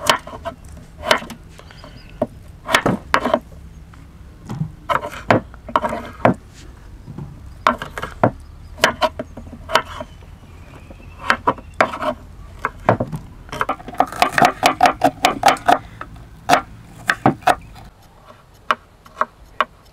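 Knife chopping vegetables on a cutting board: irregular sharp knocks, with a fast run of chops about two-thirds of the way in.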